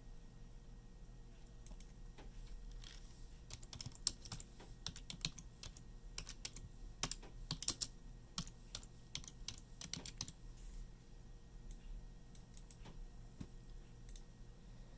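Faint, irregular little clicks from a kitten chewing and licking at its paw, thickest in the middle of the stretch.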